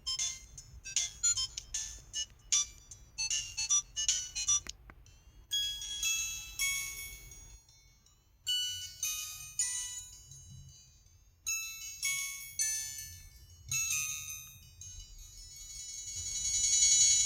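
LG LB2900 mobile phone ringtones playing as high-pitched electronic melodies. One tune ends about five seconds in, and a different ringtone melody starts right after it.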